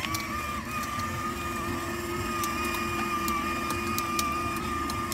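Electric motor and gearbox of a battery-powered Thomas the Tank Engine ride-on toy whining steadily as it drives along, with scattered light ticks from about halfway through.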